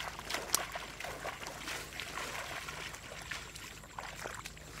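Footsteps wading barefoot through shallow water among grass, with irregular splashes and sloshes at each step.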